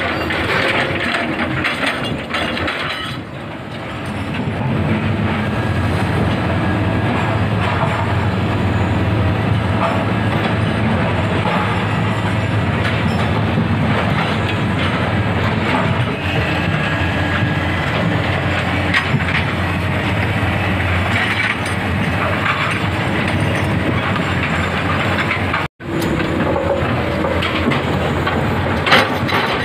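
Hydraulic excavator's diesel engine running steadily under load while it moves large breakwater rocks, with occasional knocks of rock on rock. There is a brief drop-out about three-quarters through.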